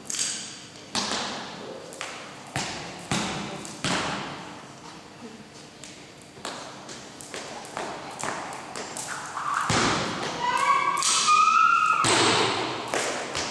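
Skipping rope slapping a hard gym floor and sneakers landing during a freestyle jump rope routine: irregular sharp impacts, each with a short hall echo. Near the end a drawn-out high squeal, rising slightly, is the loudest sound.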